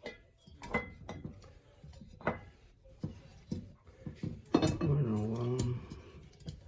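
Scattered metal clinks and taps of bolts, washers and the replacement exhaust-fan motor being handled and fitted back onto its mount. A short low hum lasting about a second comes a little past the middle and is the loudest sound.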